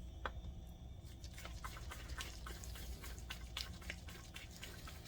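A screw being turned in by hand with a screwdriver: a run of light, irregular clicks and ticks over a faint steady low hum.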